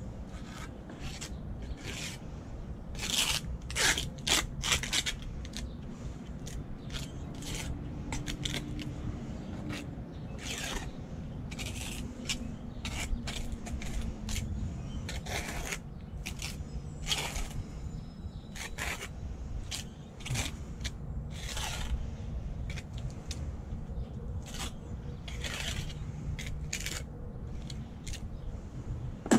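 Steel trowel scraping wet mortar across the back of a bluestone flagstone in many short, irregular strokes, buttering the stone before it is set.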